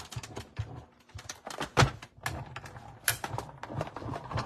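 Hand-cranked die-cutting machine being turned to feed a sandwich of acrylic cutting plates, a metal die and cardstock through its rollers, giving a run of irregular clicks and knocks. The loudest knock comes about two seconds in.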